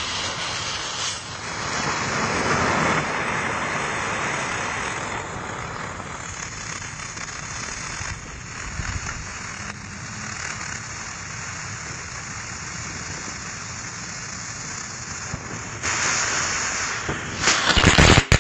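A 'Doggie Doo Doo' novelty firework fizzing with a steady hiss as it burns and pushes out its ash 'droppings'. About sixteen seconds in it grows louder, and near the end it crackles as it bursts into its shower of sparks.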